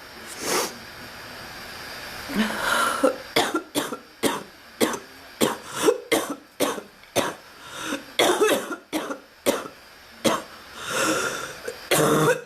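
A woman coughing: one cough, then from about two seconds in a long, harsh coughing fit of rapid coughs, about two a second, broken by a few drawn-in breaths. It is the persistent cough of a respiratory illness she has not shaken off.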